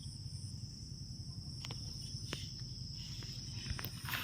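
Insects chirring steadily, a continuous high-pitched drone, with a few faint clicks.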